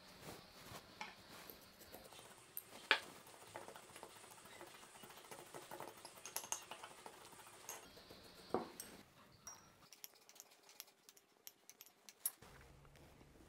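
Faint scraping and light clicks of a spoon stirring buttered cracker crumbs in a ceramic bowl, with one sharper tap about three seconds in and a quick run of thin ticks near the end.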